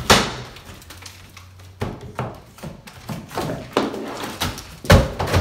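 Drywall being ripped off wall studs by hand and broken apart: a string of sharp thuds and cracks, the loudest right at the start and near the end.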